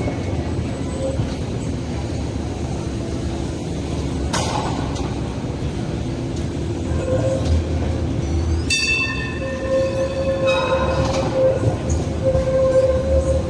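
Hong Kong Light Rail Phase 1 light rail vehicle rolling slowly through the stop with a steady low rumble, and a brief hiss about four seconds in. A little past halfway, wheel squeal starts suddenly as several high tones, then settles into one steady squeal as the car takes the curve.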